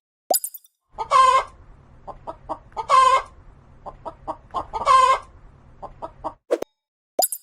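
Bird calling: three loud calls about two seconds apart, with short, quieter calls in between.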